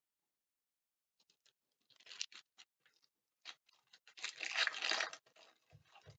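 Foil trading-card pack crinkling and being torn open by hand, starting about a second in, with the loudest stretch of crackling and tearing about four seconds in. Two short low knocks near the end.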